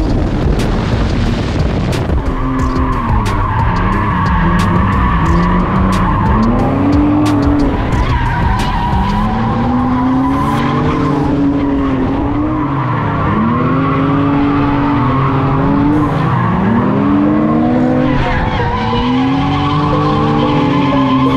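Two drift cars in a close tandem drift: engines revving up and down over and over as the throttle is worked, over steady tire squeal from tires sliding and smoking.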